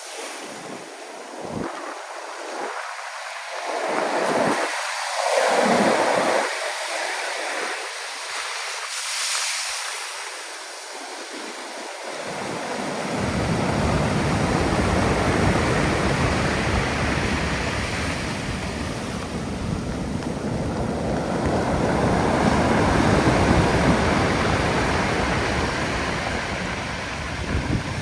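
Black Sea storm surf: heavy waves breaking and washing up the shore in rising and falling swells, with wind on the microphone. A deep rumble joins about twelve seconds in.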